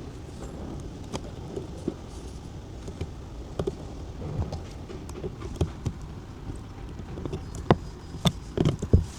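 Irregular clicks and knocks of hand work on car parts and wiring over a low steady rumble, coming thicker and louder near the end.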